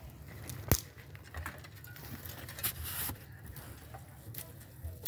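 Scattered light taps and scrapes, with one sharp click about three quarters of a second in.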